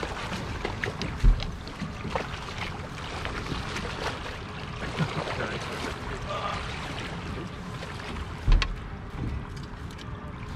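A hooked catfish splashing and thrashing at the surface beside the boat as it is played to the landing net, over a steady rush of water and wind. Two heavy thumps stand out, about a second in and again about eight seconds in.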